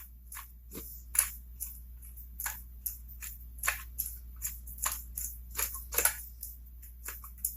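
Irregular small clicks and taps of metal parts being handled while a spring is worked onto a chainsaw's stiff rubber intake boot, about one or two a second, over a steady low hum.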